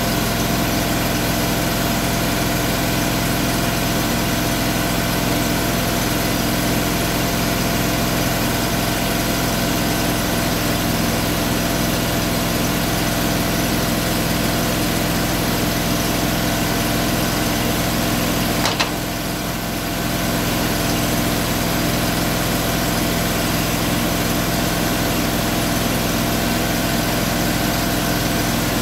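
An engine idling steadily. A sharp click about two-thirds of the way through is followed by a brief drop in the sound, which then recovers.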